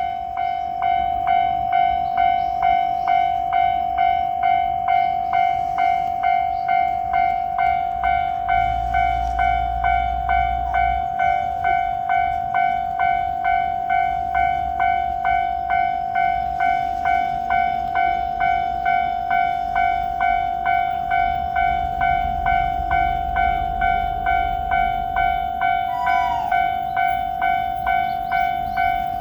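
Japanese railway level-crossing warning bell ringing in a steady, rapid kan-kan rhythm, about two strokes a second. A train's low rumble rises under it twice, as a train passes over the crossing.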